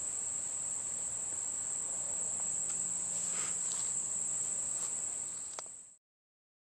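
Steady high-pitched chirring of crickets, with a faint click just before the sound cuts off abruptly about six seconds in.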